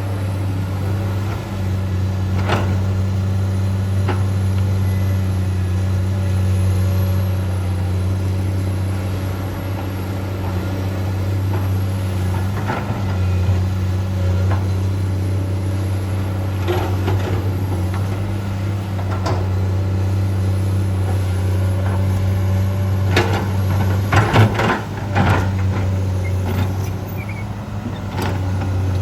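Komatsu PC200-8 hydraulic excavator's diesel engine running steadily while digging, with a low drone throughout. Sharp knocks and clanks come now and then, a quick run of them late on.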